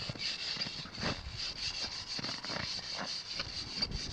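Hand snow saw from a Backcountry Access shovel cutting into hard-packed snow, with scratchy back-and-forth rasping strokes about two a second.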